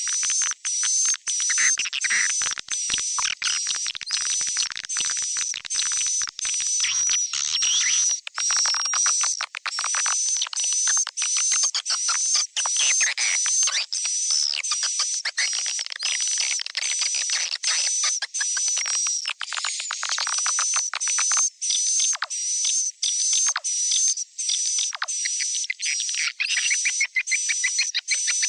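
Edible-nest swiftlet calls from a lure recording of juvenile calling, played to draw swiftlets to a nest house. A rapid, even series of high chirps runs throughout and quickens into fast twittering near the end.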